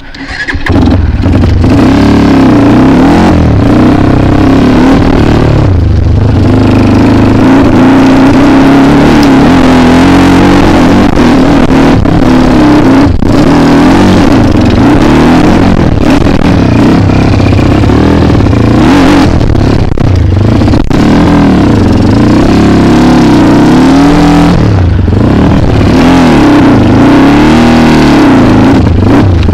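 Kawasaki KLX trail bike's engine revving up and down as it is ridden, very loud and close, starting about half a second in.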